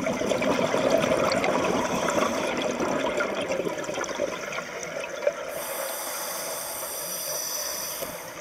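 Underwater bubbling and gurgling from a commercial diver's helmet exhaust, a dense steady crackle of bubbles that eases a little past the middle.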